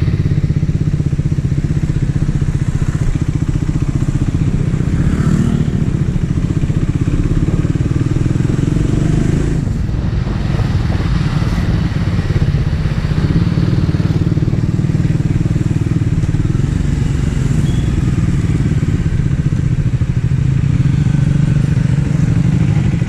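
Triumph Speed 400's single-cylinder engine and exhaust running while the motorcycle is ridden, a steady engine note with a few brief changes as the throttle varies.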